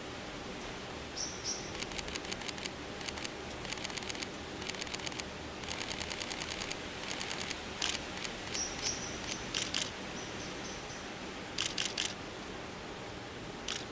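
Camera shutter firing in rapid bursts, several quick clicks at a time, repeated many times over a steady outdoor background hiss. A few faint, short, high chirps come in about a second in and again around nine and ten seconds.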